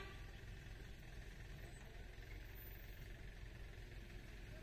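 Quiet outdoor ambience with a faint, steady low rumble and no distinct events.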